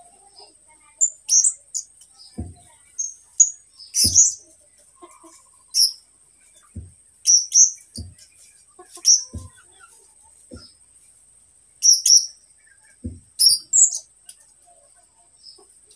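A young caged turipos, about a year old and still learning its song, gives short, high chirps every second or so. About eight soft low thumps come in between, over a faint steady high whine.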